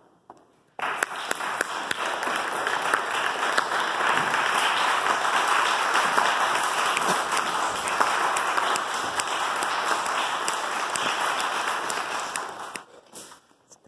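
Audience applauding, starting sharply about a second in and dying away near the end.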